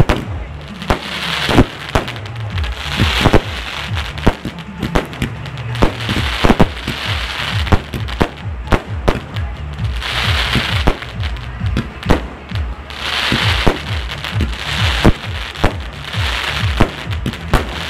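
Aerial fireworks going off: many sharp bangs in quick, irregular succession with bursts of crackling hiss. Background music with a low bass line plays underneath.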